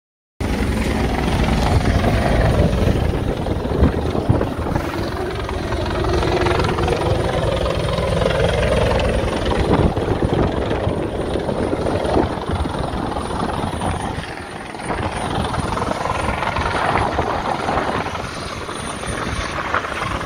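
Helicopter rotor and engine running, a loud, steady chop with a rush of noise. It starts suddenly just after the beginning.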